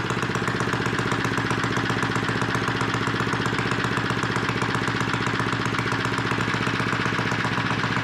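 Power Fist 79cc single-cylinder four-stroke OHV engine running steadily with no exhaust fitted, on a bench test driving the snowmobile's chain and track.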